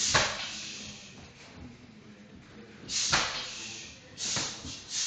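Muay Thai kicks and punches landing on a hanging heavy bag: four sharp smacks, one at the start, one about three seconds in, and two close together near the end.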